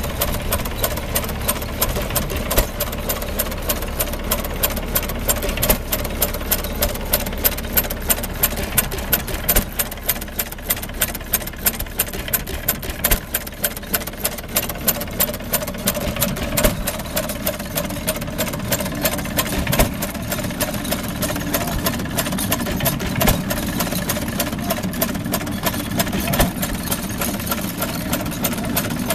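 Domestic side-shaft hit-and-miss gas engine running, with louder beats about every second. Over it comes the fast, even clicking clatter of the belt-driven string-braiding machine that it powers.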